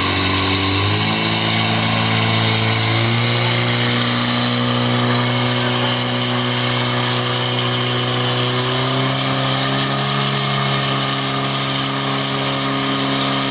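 Portable firefighting pump's engine running at high revs, driving water out through the hoses. Its pitch climbs in steps over the first few seconds, then holds steady.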